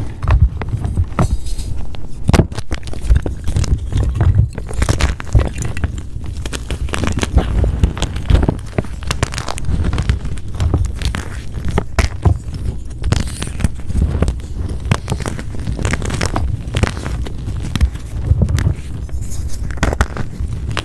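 Blocks of gym chalk being crushed and crumbled close to the microphone: a dense, irregular run of crunching crackles over dull low thumps.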